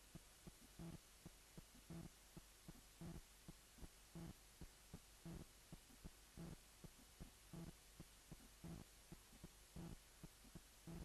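Faint, regular heartbeat throbbing: a strong low thump about once a second, with lighter beats in between. It cuts off abruptly at the end.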